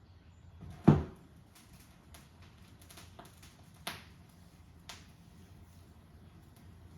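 Koetsu Coralstone Platinum moving-coil cartridge's stylus set down on a vinyl record with a single thump about a second in, then riding the silent lead-in groove: faint scattered clicks and pops over a low hum.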